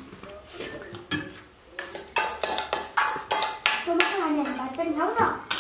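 Steel spoons and dishes clinking: a quick run of sharp metal clinks and scrapes as food is served onto steel plates, starting about two seconds in. A voice is heard briefly near the end.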